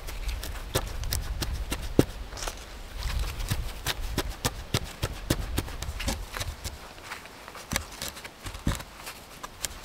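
Irregular taps, knocks and scrapes of gloved hands, and later a short wooden stick, working moss into the gaps between the logs of a log wall. One sharp knock about two seconds in is the loudest.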